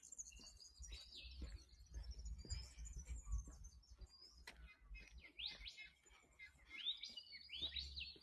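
Faint dawn chorus of several wild birds chirping and calling, with high, quick notes overlapping, and a run of short sweeping notes in the second half, over a faint low rumble.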